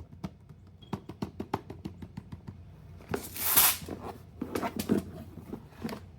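Fidget toys being handled: a quick run of small plastic clicks and taps, a loud rustle about three seconds in, then more clattering taps.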